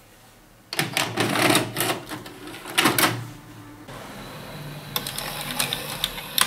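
VHS video cassette recorder's tape transport mechanism working: the cassette carriage and gears clatter and click, with several loud clunks in the first few seconds, then a steadier whir with clicks, cutting off suddenly near the end.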